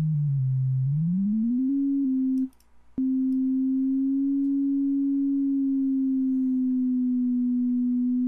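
A pure sine-wave tone from the Helm software synthesizer's oscillator. In the first second and a half the transpose control glides its pitch down about an octave and back up. The tone cuts out for about half a second and returns with a click. It then holds nearly steady, with a slight slow rise and fall in pitch as the fine-tune control is turned in cents.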